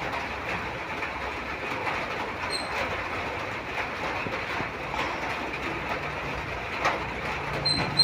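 Steady rain, an even hiss that runs without a break. There is a brief click about seven seconds in, and a few short high chirps near the end.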